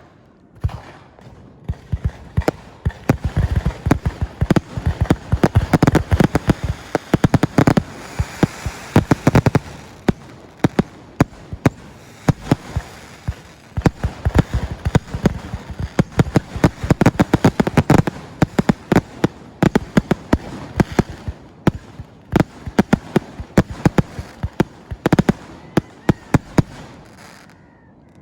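Fireworks display: a dense, unbroken run of sharp bangs and crackles with low booms, stopping abruptly near the end.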